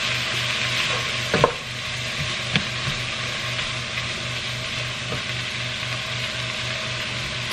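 Shredded chicken and diced vegetables sizzling in a hot soup pot and stirred with a wooden spoon, with two sharp knocks about one and a half and two and a half seconds in. A low hum pulsing about four times a second runs underneath.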